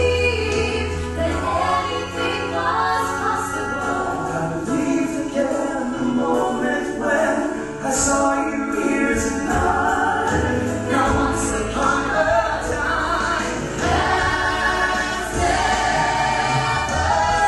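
A mixed group of singers singing a song together in harmony over an instrumental backing track.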